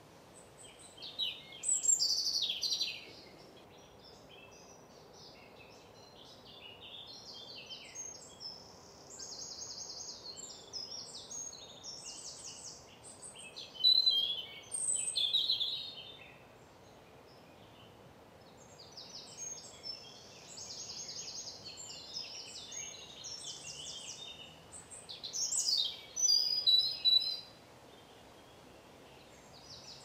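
Songbirds singing in woodland: loud, quick song phrases near the start, around the middle and near the end, with fainter, trilling song in between.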